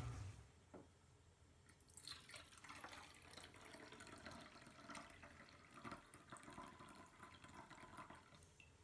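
Mugwort dye liquid poured from a tipped steel pot through a mesh strainer into a metal bowl: faint trickling and dripping, starting about two seconds in.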